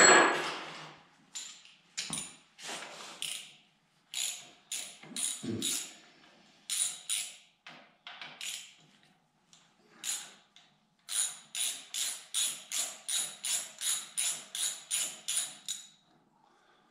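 Hand ratchet wrench clicking in short strokes as a bolt is worked on a tractor's steering pedestal. The strokes are scattered at first, then steady at about three a second for the last five seconds or so. A loud metal clank comes right at the start.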